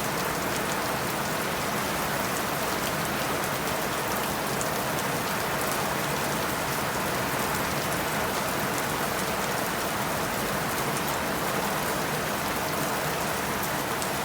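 Steady rain falling: a constant even hiss with many fine drop hits.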